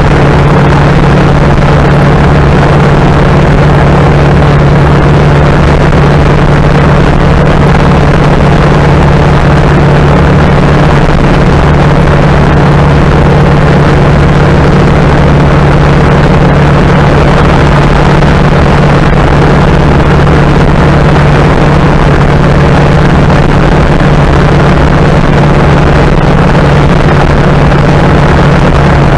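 1930 Ford Model A's four-cylinder flathead engine running at steady highway cruise, heard from inside the car as a steady low drone under road and wind noise. The engine is running on its newly installed FSI distributor.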